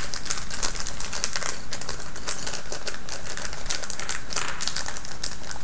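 Small plastic gearbox parts clicking and rattling against each other inside a plastic bag as it is handled, with the bag crinkling: a dense, continuous run of rapid small clicks.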